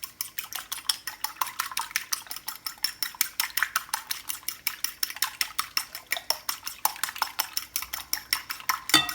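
A raw egg being whisked in a bowl: the utensil clicks rapidly and evenly against the side of the bowl, several strokes a second, with one louder clink near the end.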